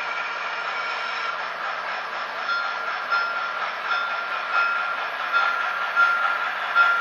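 Two model 2-8-0 steam locomotives running double-headed: a steady hiss with a thin whine, and from a couple of seconds in a regular beat, about three every two seconds, growing louder as they come closer.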